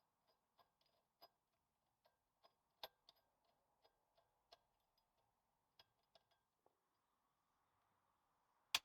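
Near silence with faint, irregular light ticks about two a second, and two sharper clicks, one about three seconds in and one at the very end.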